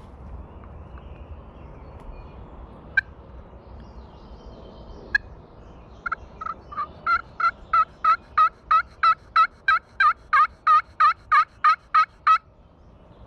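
Turkey call sounding hen turkey yelps: two single sharp clucks, then a long run of about twenty yelps at about three a second that grows louder and stops abruptly, calling to a gobbler.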